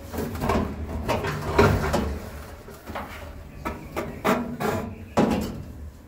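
GE Spacemaker stacked clothes dryer running with a faulty drum, a continuous low rumble broken by repeated scraping, squealing grinding strokes at uneven intervals. This is the grinding noise fault that the machine is being opened up to repair.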